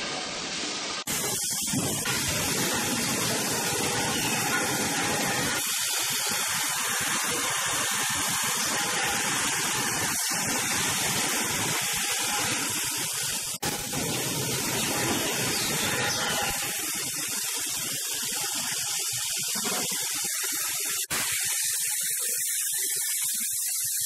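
Steady rushing, hiss-like din of solar water heater tank production machinery running on a factory floor. The sound changes abruptly about a second in, about halfway through and near the end.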